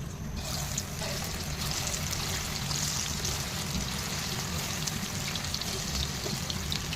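Chicken frying in hot oil, a steady sizzle dotted with small crackles.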